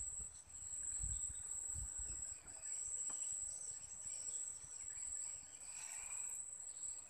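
Insects in the riverside vegetation trilling steadily at one high pitch, with fainter chirps around it and a few soft low bumps on the microphone.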